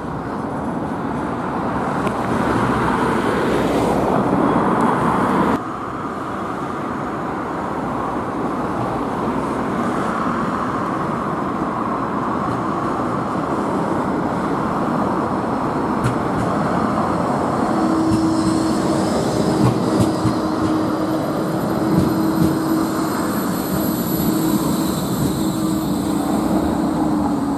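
Blackpool Bombardier Flexity 2 trams running past at close range on street track, a steady rumbling. From about two-thirds of the way through, a steady hum and a higher whine join in as two trams pass each other.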